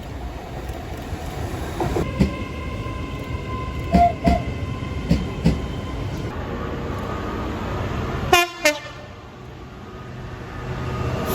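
Train running past with a steady rumble, its wheels knocking in pairs over rail joints. About two-thirds of the way through, the train horn gives two short, quick blasts.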